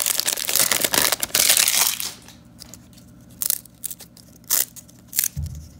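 Foil wrapper of a 1993-94 Fleer Ultra hockey card pack crinkling and tearing as it is pulled open, for about two seconds. Then come a few light snaps and scrapes of the cards being handled, and a soft bump near the end.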